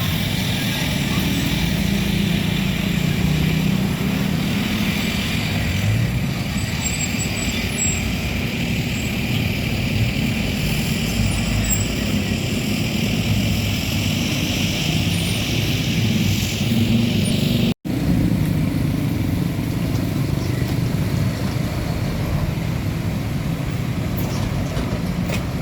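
Steady road traffic: engines and tyres of passing vehicles running without a break, with the sound cutting out for an instant about eighteen seconds in.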